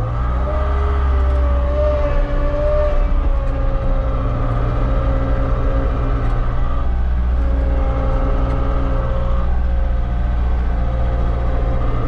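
Skid steer's diesel engine running hard, heard from inside the cab, with a whine that rises and falls in pitch as the machine maneuvers.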